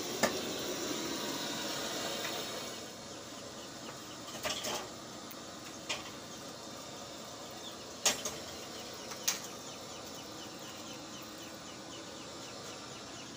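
Steady hiss of a gas flame singeing the leftover feathers off a plucked chicken, dropping to a lower level about three seconds in. A few sharp knocks and clatters come from handling on the grill.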